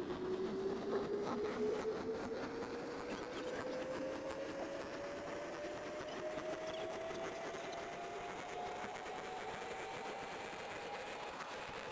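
Boat's outboard motor running steadily, its pitch rising slowly and evenly as the engine speeds up, over the rushing noise of the boat under way.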